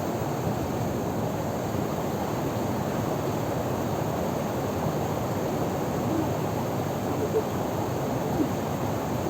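Steady rushing of river water over a small waterfall, an even wash of sound with no breaks.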